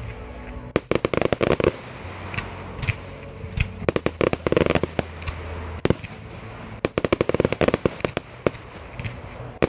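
Fireworks going off in rapid volleys of sharp bangs and crackles. There are three dense clusters, each about a second long and a few seconds apart, with scattered single reports between them.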